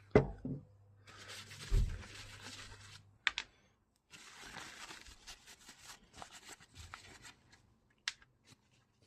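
Small airsoft regulator parts handled during cleaning: a knock as a part is set down, then stretches of rustling noise, broken by a few sharp clicks.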